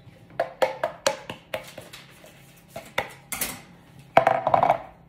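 A spatula and a plastic measuring cup knocking against a stainless steel mixing bowl as shredded carrot is tapped and scraped out: a string of sharp knocks, each with a short metallic ring from the bowl, then a louder burst of clattering near the end.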